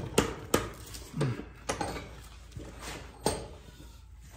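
Scattered sharp metal clinks and knocks of tools and steel parts being handled at a workbench vise, about four distinct strikes spread over a few seconds.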